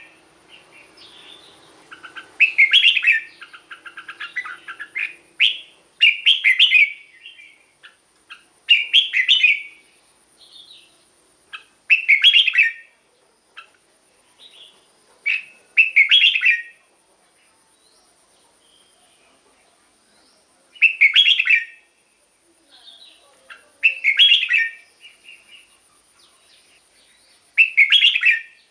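Red-whiskered bulbul singing: short, loud phrases of whistled notes about a second long, repeated every three to four seconds, with softer chattering calls between them.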